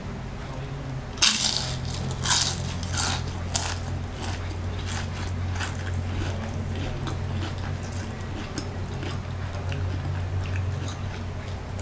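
Crispy fried lumpia shanghai (Filipino spring rolls) bitten and chewed close to the microphone: a sharp crunch about a second in, more loud crunches over the next few seconds, then a long run of softer crackly chewing. A steady low hum runs underneath.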